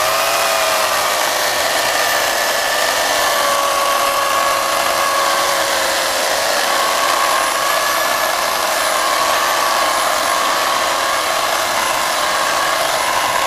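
Craftsman CMECS600 12-amp corded electric chainsaw cutting through a thick log, its motor running at full speed in one long continuous cut. The motor's whine sags a little as the chain bites into the wood in the first couple of seconds, then holds with small wavers under load.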